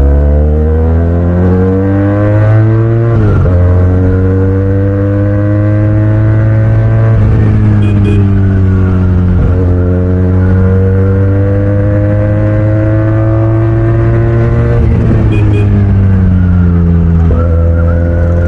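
QJ Motor SRK 400's parallel-twin engine through a loud aftermarket exhaust, the bike riding and pulling through the gears: the note climbs, drops sharply at gear changes about three seconds in and again near the end, with steadier stretches between.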